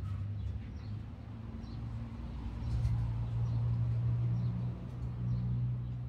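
A low, steady mechanical hum that grows louder about three seconds in. Small birds chirp faintly now and then over it.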